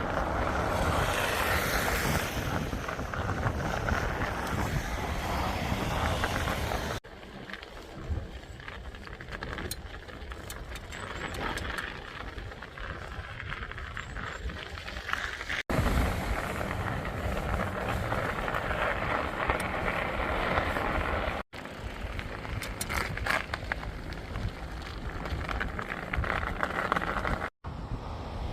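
Wind buffeting the microphone with a low rumble of rolling along the road, in several short clips that cut off abruptly.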